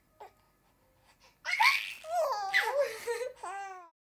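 A baby laughing in bursts of high giggles, starting about a second and a half in and cutting off abruptly near the end.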